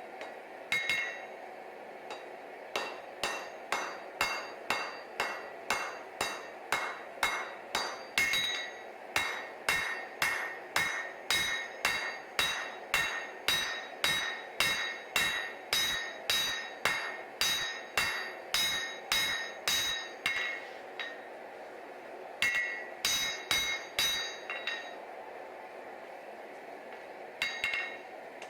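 Hammer blows on hot damascus steel over an anvil while the knife's tang is forged, about two strikes a second, each with a short metallic ring. The hammering stops briefly twice near the end, with a steady low noise underneath throughout.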